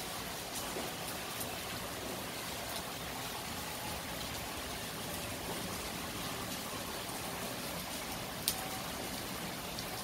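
Heavy rain falling steadily, a dense even hiss of drops on surfaces, with one sharp click about eight and a half seconds in.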